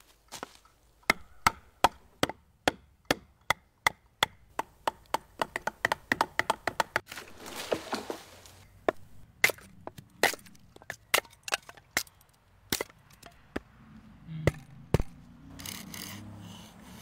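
A gloved fist punching a dry, dead tree trunk: a run of sharp knocks on wood at about two or three blows a second, which thin out after about 13 seconds.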